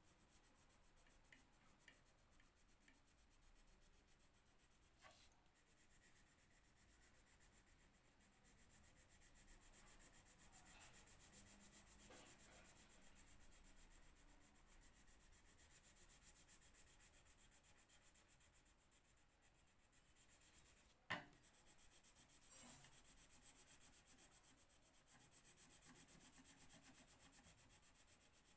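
Faint scratching of a colour pencil shading on paper in rapid back-and-forth strokes, with one sharp click about three-quarters of the way through.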